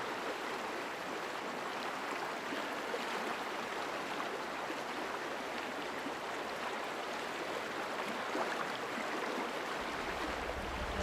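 Steady rushing hiss of heavy rain and running water. A low hum comes in near the end.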